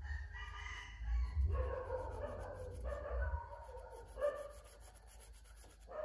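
An animal calling off and on, several drawn-out cries of up to about a second each, over a low rumble that fades about halfway through.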